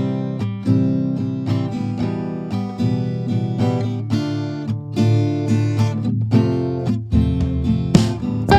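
Instrumental background music made of a continuous run of sharply plucked, pitched notes.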